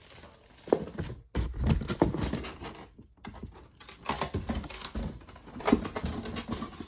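Packaging being handled as a boxed table fan is lifted out: irregular rustling, crinkling and light knocks of cardboard and plastic wrap.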